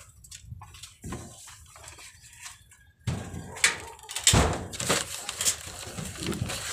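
Paper shopping bag stuffed with rubbish being handled and packed: quiet rustling at first, then from about three seconds in a busier run of rustles and sharp knocks.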